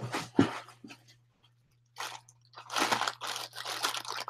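Plastic packaging bags crinkling and rustling as items are pulled from a box, in irregular bursts with a short lull in the middle.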